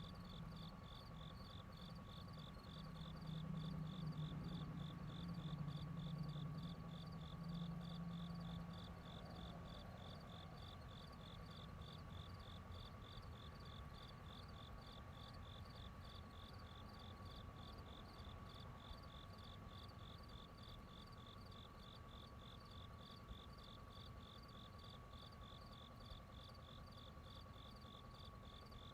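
Faint outdoor ambience of insects chirping in a fast, even pulse with a steady high tone beneath. A low whirring hum swells about three seconds in and fades away by about twelve seconds.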